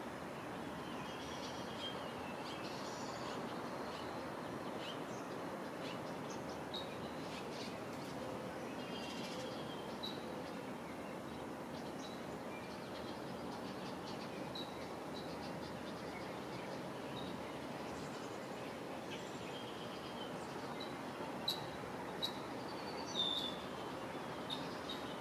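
Birds chirping and calling repeatedly in short high notes over a steady background hiss, with a few louder sharp short sounds near the end.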